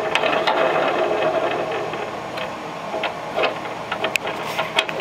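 Toddler handling a wooden toy kitchen, its toy faucet and toy food: scattered light clicks and knocks. A steady background hum runs under the first couple of seconds.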